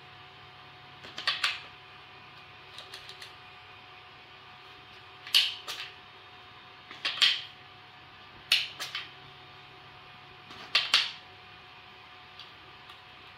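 Hard plastic clicks and clacks of a battery adapter being handled and latched against a Parkside cordless impact driver and its batteries: about six quick clusters of two or three sharp clicks each, spread a second or two apart.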